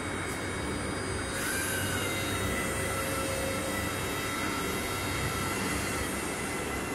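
Electric hydraulic lift pump motor of an EP ES15-33DM straddle stacker running as the forks rise up the mast: a steady drone with a whine, growing a little louder about a second and a half in.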